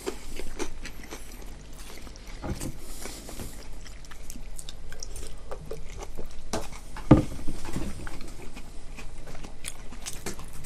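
Eating sounds: chewing, with scattered small clicks and knocks of tableware, and one louder knock about seven seconds in.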